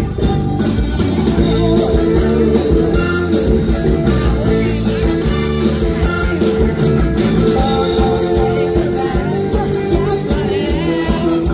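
A live band playing a Thai Isan luk thung song, with drums, electric guitars and keyboard, and women singing over it. It is heard from within the audience.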